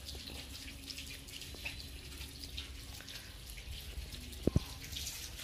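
Quiet outdoor background with a steady low rumble and faint scattered ticks, and two short soft thumps about four and a half seconds in.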